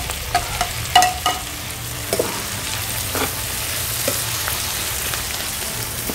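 Vegetables frying in a hot metal kadhai as chopped tomatoes are tipped in and stirred with a perforated steel spatula: a steady sizzle, with a few clinks and scrapes of the spatula against the pan and plate in the first few seconds.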